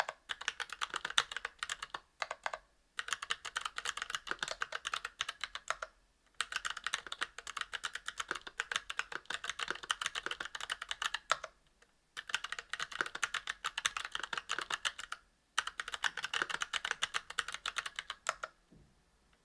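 Fast typing on a mechanical keyboard with Kailh Box Crystal Royal tactile switches, brass plate and GMK keycaps: rapid key clacks in runs of a few seconds broken by short pauses, stopping about a second before the end.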